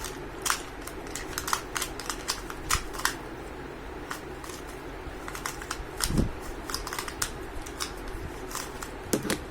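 2×2 Rubik's cube being turned quickly by hand: its plastic layers click and clack in quick, irregular runs.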